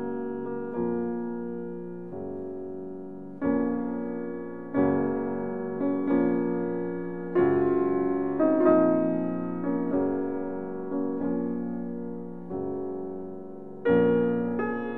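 Background piano music: chords struck one after another, each fading before the next, in a slow gentle melody.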